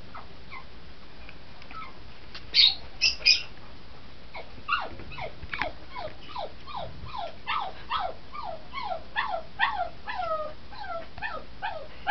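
A pug whining, a long series of short falling whimpers at about two a second, the crying of a dog that wants to get to the birds. Just before them come three short, shrill, high calls.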